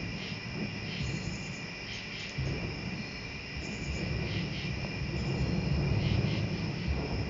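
Steady high trilling of an evening insect chorus, with short repeating chirps above it. Under it a low rumble rises and falls, swelling around six seconds in; this is the unexplained noise from the woods.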